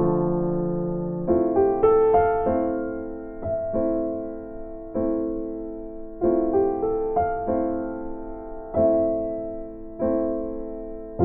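Background music: a slow electric piano playing sustained chords, a new chord struck about every one to two seconds and left to fade.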